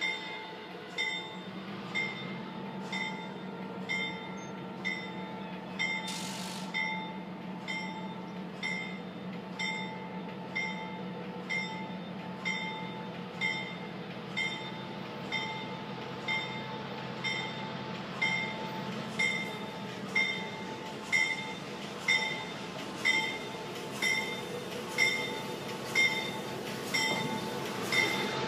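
Diesel locomotive's bell ringing about once a second as the train approaches a road crossing, over the engine's low drone, which grows louder as it nears. A brief hiss about six seconds in.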